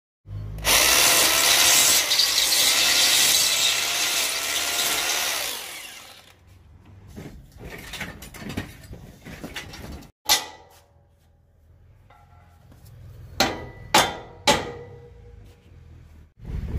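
Electric drill running under load for about six seconds, its motor pitch wavering, as holes are bored to fix a steel security gate frame with anchor bolts. Then quieter clicks and handling, and three sharp knocks in quick succession near the end.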